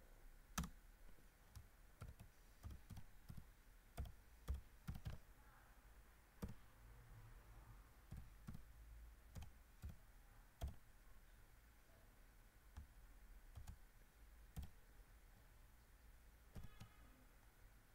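Faint, irregular keystrokes on an HP laptop keyboard as code is typed: a quicker run of key presses in the first few seconds, then scattered single keys with pauses between.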